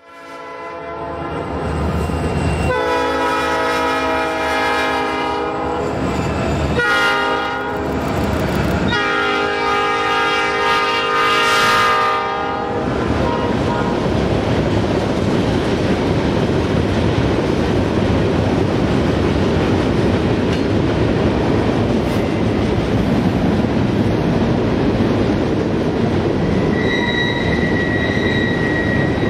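Freight locomotive air horn sounding three blasts, long, short, long, as the train passes. Then the steady rumble and clatter of freight cars rolling by, with a high wheel squeal near the end.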